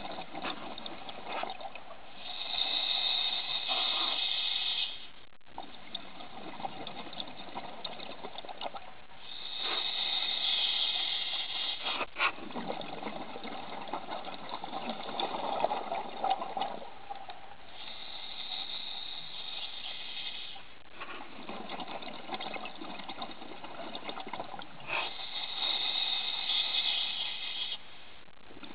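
Scuba diver breathing underwater through a regulator: four slow breaths, each a hissing inhale followed by a longer bubbling rush of exhaled air, about every seven to eight seconds.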